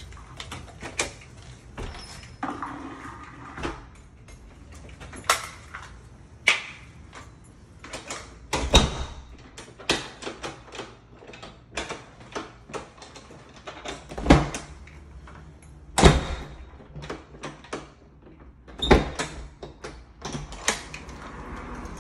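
A door with a newly installed mortise lock being shut and worked over and over as the lock is tested: many sharp metallic clicks of the latch and bolt, with several louder thuds of the door closing.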